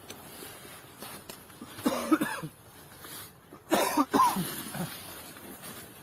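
Two short vocal sounds from a person, a little under two seconds apart, the second starting sharply; they are not clear words.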